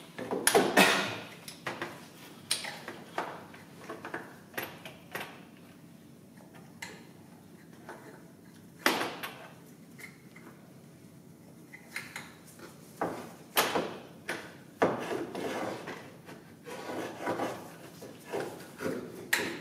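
Irregular clicks, knocks and short scrapes of hand tools and metal parts being handled at an engine, loudest about a second in and in clusters later.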